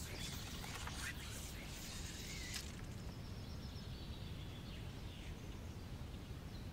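Faint outdoor ambience on open water: a steady low rumble, with a few soft clicks in the first couple of seconds and a brief faint chirp about halfway through.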